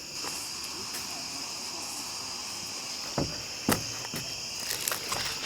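Crickets chirring steadily in a high, even drone, with a few soft knocks a little past the middle.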